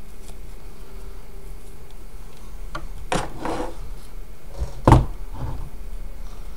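A cast-iron dumbbell set down on a wooden log round: one heavy knock about five seconds in. A brief rustling scrape comes a little past three seconds.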